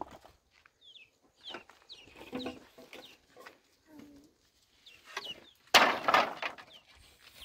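Chickens clucking with short, scattered calls, and one loud harsh burst about six seconds in.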